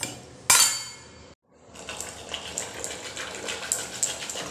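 A sharp metal clink with a short ring about half a second in. Then a wooden dal masher spun between the palms in a steel pressure cooker of cooked lentils, rattling against the pot in a rapid, uneven run of ticks as the dal is mashed.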